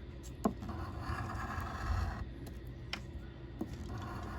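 Scratch-off lottery ticket being scratched, a steady scratching stroke lasting about two seconds, followed by a few sharp clicks.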